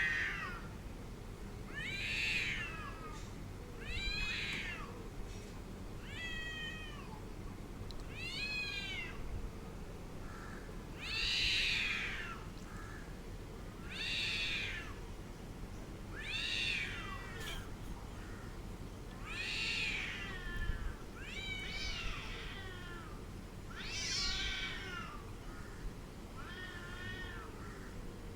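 A domestic cat yowling angrily, about a dozen drawn-out calls, one every two to three seconds, each rising and then falling in pitch.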